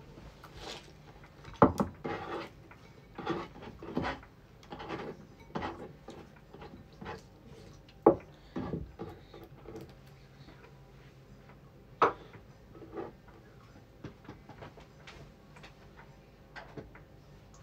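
Kitchen handling sounds: a ceramic bowl and utensils knocking and scraping on a wooden cutting board as shredded greens are gathered into the bowl, with a few sharper knocks among softer clatters.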